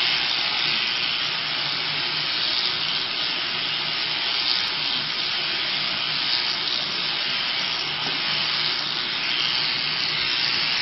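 Electric sheep-shearing handpiece running steadily as it cuts through a sheep's fleece: a constant high buzzing hiss with a faint low hum underneath that comes and goes.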